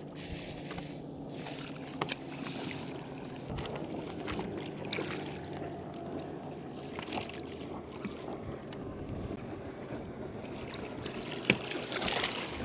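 Water lapping against the hull of a fibreglass bass boat, with wind on the microphone and a faint low hum underneath. Scattered light knocks come through, and a sharper knock is followed by a louder rush near the end.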